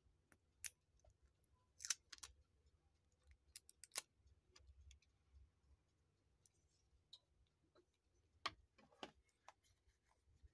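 Small, sharp clicks and taps of a steel watch case and strap being handled between fingers. They come in small clusters: a few about two seconds in, more around four seconds, and a pair near the end.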